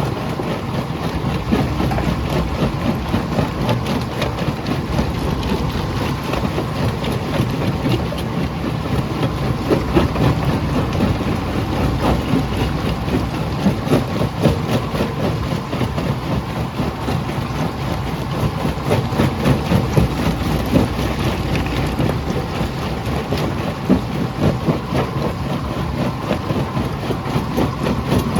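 Jaw crusher running under load: a steady low rumble crowded with a dense stream of short cracks and knocks as rock is broken.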